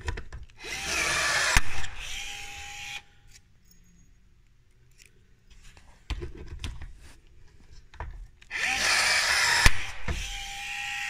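Power drill drilling out rivets in a metal awning mounting rail, in two runs of about two seconds each: one about a second in and one near the end. Each run eases into a steady whine before stopping.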